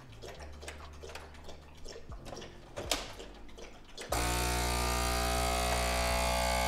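Light clicks and a low hum, then about four seconds in a FoodSaver vacuum sealer's pump starts and runs loudly and steadily in marinate mode, drawing air out of a marinator container through its handheld sealer attachment.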